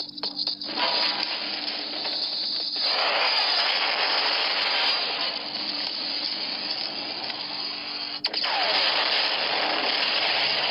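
Film sound effects of explosions and fire: a continuous rushing, crackling noise with short dropouts in the first second and a sharp break about eight seconds in.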